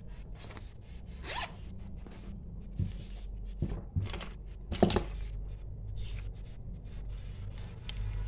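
Zipper of a fabric pencil pouch being pulled open in several quick pulls, followed by lighter rustling and clicks as items are handled inside the pouch.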